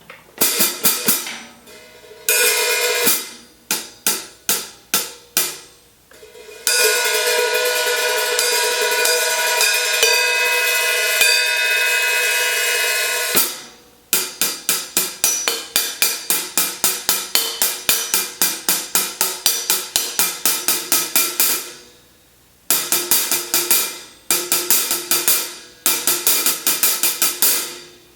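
Zildjian 14" K Mastersound hi-hats played solo. First come separate crisp strikes and short open splashes, then a sustained open wash for several seconds in the middle. After that comes a steady run of quick strokes, about four a second, and finally short bursts of strokes.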